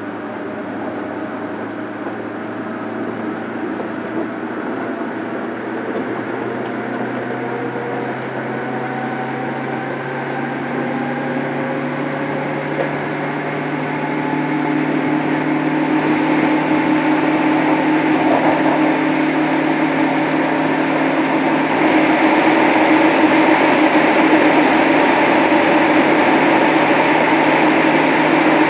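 Traction motors of a JR Kyushu 103 series 1500-subseries resistor-controlled electric train, heard from on board the motor car, as the train accelerates: the motor whine slowly rises in pitch and grows louder, over a steady low hum.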